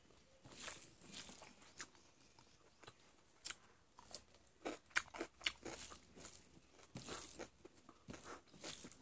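A person chewing and biting into chicken close to the microphone, with many short, irregular crunches.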